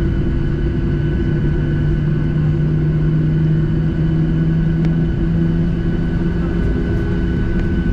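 Cabin sound of a Boeing 737-700's CFM56-7B engines at idle while the airliner taxis onto the runway: a steady rumble and low drone with a steady whine over it. The low drone swells for a few seconds in the middle.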